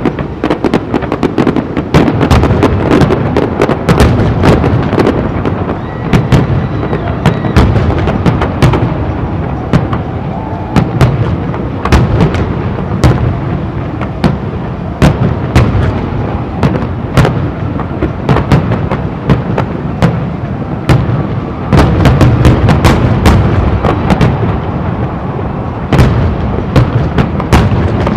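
Aerial fireworks display: shells bursting in rapid, overlapping booms and crackles with a continuous low rumble, in heavier volleys at several points.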